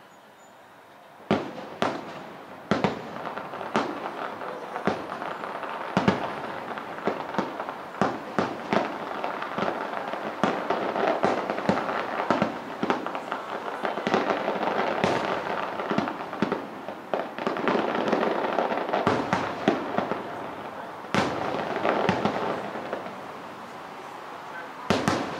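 Aerial fireworks shells bursting in quick succession: sharp booms, starting about a second in, over a continuous crackle.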